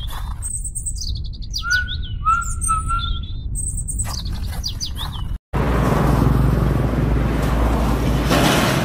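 Birds chirping and calling in short repeated phrases, which cut off suddenly about five seconds in and give way to a steady outdoor noise with a strong low rumble.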